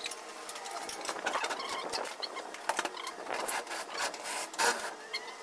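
Scattered knocks, clicks and scraping from hand work on a dry van trailer's door and its hardware, with a short rasping scrape about four and a half seconds in.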